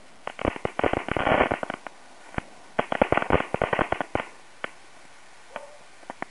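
Crackle ball fireworks going off, set off by a burning smoke ball: two runs of rapid sharp crackling pops, each about a second and a half long, then a few scattered single pops near the end.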